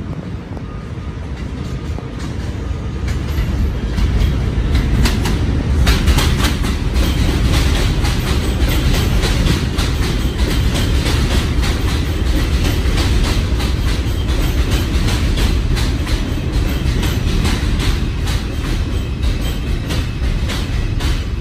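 An R142 New York City subway train pulls into an elevated station: a deep wheel rumble on the steel el structure, with a steady run of rail-joint clicks. The rumble builds over the first few seconds as the train reaches the platform, stays loud while the cars pass, and eases a little near the end as it slows.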